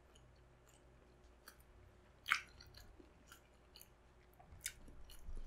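A person chewing a mouthful of balut (fertilized duck egg) heaped with chopped chili: wet mouth smacks and clicks, scattered and soft, the loudest about two seconds in.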